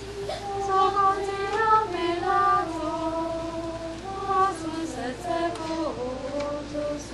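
High voices singing a slow hymn melody together, moving in steps between held notes.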